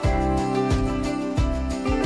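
Background music with a steady beat of low bass hits, about three every two seconds, under sustained pitched notes.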